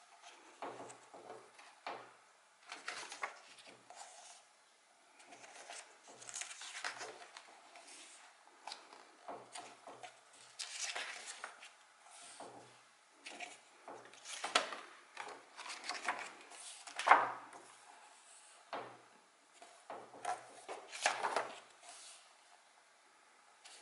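Paper pages of a softcover book being turned and smoothed by hand: a string of short paper rustles and swishes at irregular intervals, some with a soft thud of the book on the table.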